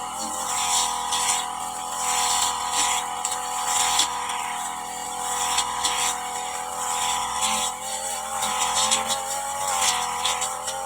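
Petrol brush cutter engine running at high revs, its pitch wavering slightly up and down as it cuts through grass and brush.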